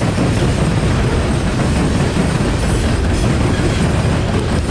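Loaded coal hopper cars of a CSX freight train rolling past: a steady, loud, deep rumble of steel wheels on rail.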